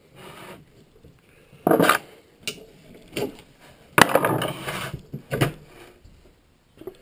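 Metal hand tools and sockets being handled on a workbench: several separate clatters and clicks, the longest and loudest lasting about a second from around four seconds in.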